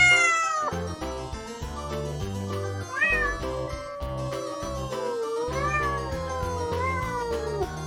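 Domestic cat meowing: a short meow at the start, then a long, drawn-out, wavering meow lasting several seconds, over background music with a steady beat.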